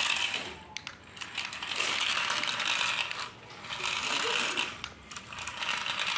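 Small electric motor and plastic gearbox of a toy radio-controlled airplane whirring with a ratcheting rattle as it drives on its wheels across a concrete floor. It runs in spurts, stopping briefly three times.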